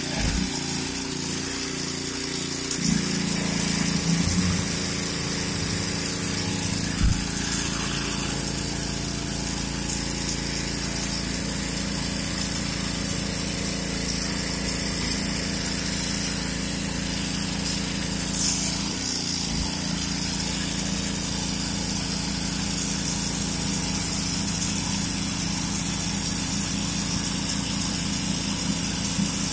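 Karcher 3,000 PSI, 2.5 GPM pressure washer's engine running steadily under load, with a steady hiss of water jetting from a TH-40 tile spinner into a plastic bucket. The engine note shifts slightly about three seconds in.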